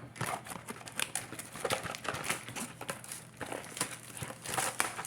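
Crinkling and rustling of Yu-Gi-Oh! trading-card packaging being handled and opened, with many irregular small crackles.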